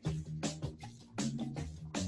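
Background music with a steady beat: a drum hit about every three-quarters of a second over a bass line.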